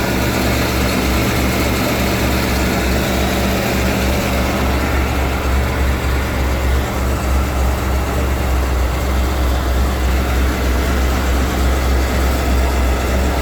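1991 Ford E-350's 5.8-litre V8 idling steadily on a very cold day, with an even low hum and no change in speed.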